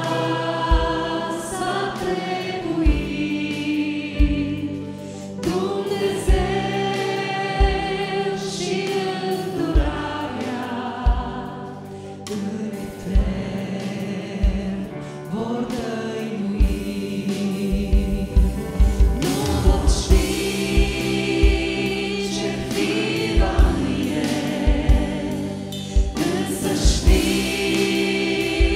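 Live worship band playing a Romanian worship song: a small group of women's and men's voices singing in harmony over keyboard, guitars and drums. The drum beat becomes steady about halfway through.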